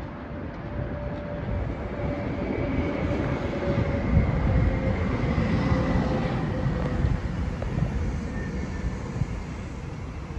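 A train passing: a low rumble that swells to its loudest about four to six seconds in and then fades away, with a faint whine on top.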